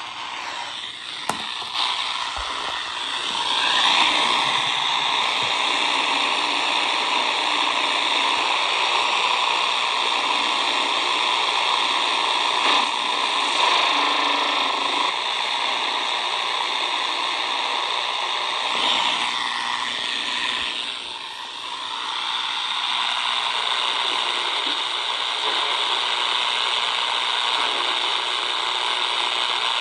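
Static hiss from a Tecsun R9012 portable shortwave radio's speaker while it is tuned, with sweeping whistles as the dial passes signals about three seconds in and again near twenty seconds.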